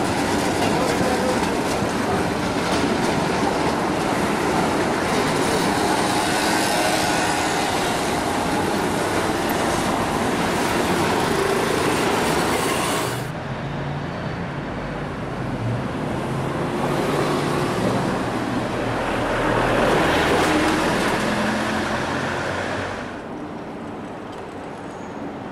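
Street noise dominated by a modern articulated tram rolling past close by on its rails. About halfway through the sound changes abruptly to general city traffic with passing motor vehicles, which grows louder and then drops back near the end.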